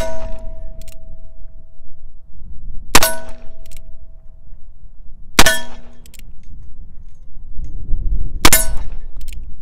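Taurus Deputy .45 Colt single-action revolver firing Cowboy Action loads: three shots about two and a half to three seconds apart, following one that lands right at the start. Each report is followed a moment later by a fainter metallic clang from the struck steel plate target.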